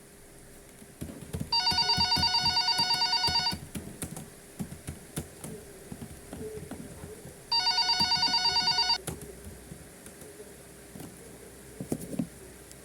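Telephone ringing with an electronic warbling ring: two rings, the first about two seconds long and the second about a second and a half, with soft knocks and clicks between them.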